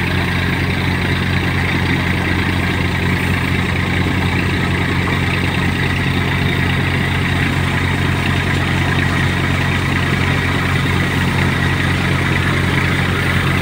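Tractor-driven grain thresher running steadily: the tractor's diesel engine drones under the steady load of the thresher, with the whirr and rush of the machine's drum and fans over it.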